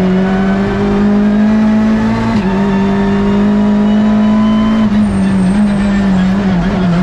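Hyundai i30 N TCR touring car's turbocharged four-cylinder engine running hard at high revs, heard from inside the cockpit. Its pitch climbs slowly, with brief breaks about two and a half and five seconds in.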